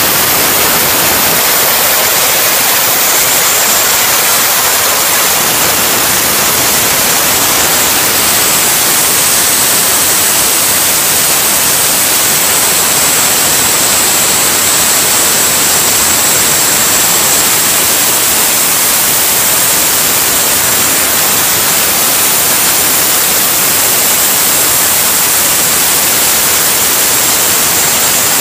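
Lockheed L-1011 TriStar auxiliary power unit, a Pratt & Whitney ST6L-73 twin-shaft gas turbine derived from the PT6, running steadily: a loud, even rushing noise with a thin high whine on top. The whine rises slightly in pitch about eight seconds in.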